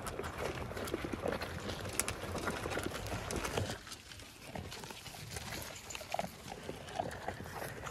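Dense close-up clicking, knocking and rustling from a phone being picked up and handled by hand, with sheep feeding at a trough right beside it. The clatter eases about four seconds in.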